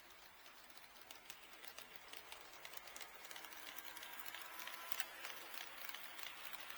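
HO-scale model train running on KATO Unitrack, its wheels clicking rapidly and irregularly over the rail joints, growing louder as it comes closer.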